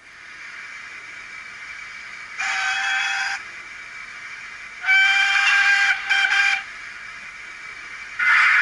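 Digital sound decoder in a model GWR 57xx pannier tank locomotive, playing its recorded steam sounds through the model's small speaker. A steady hiss of a standing engine comes on at once. About two and a half seconds in there is a short whistle blast, and about five seconds in a longer two-part whistle. Near the end comes a loud burst of hissing steam.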